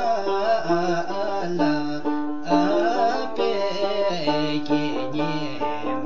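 Background music: a tune with a moving bass line, playing throughout.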